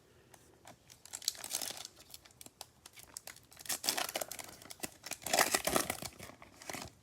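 Trading-card pack wrapper being torn open and crinkled in the hands, in irregular crackling spells that are loudest about four seconds in and again near the end.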